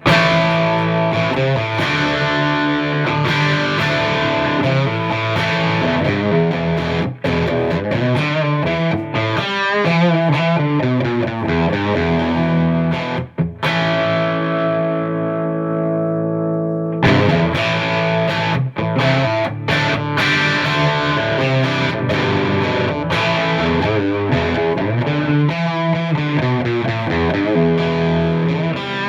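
Electric guitar with overdrive, played through a Marshall JVM210 combo with the clean channel in its red, gritty mode: chords and riffs. About halfway through, one chord is left to ring and fade out before the playing starts again.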